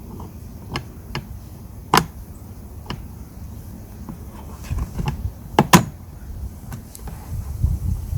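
Hard plastic parts of a mower being handled as a pivot pin is fed through the handle into the mower body: scattered clicks and knocks, a louder knock about two seconds in and a sharp double click a little past halfway.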